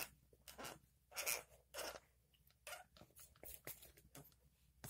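Cleaning rod pushing an oiled rag through an air rifle's rifled barrel: faint, irregular scraping and rubbing strokes.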